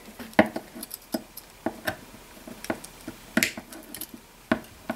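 Small, sharp, irregular clicks and taps of needle-nose pliers and fingers working a coil of nichrome resistance wire onto a wire lead, about a dozen in all, the loudest a little past the middle.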